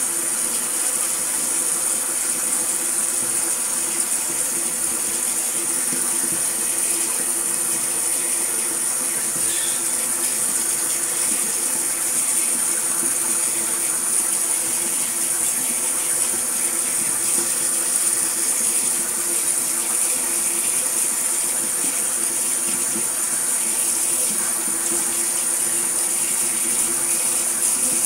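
Shower running: a steady hiss of water spraying from the showerhead and splashing over a person standing under it.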